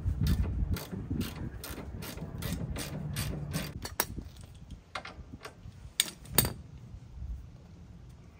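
Hand ratchet wrench clicking as it is swung back and forth on a suspension bolt at the front hub, about four even clicks a second, then slower and more scattered after about four seconds, with two louder clicks a little past the middle.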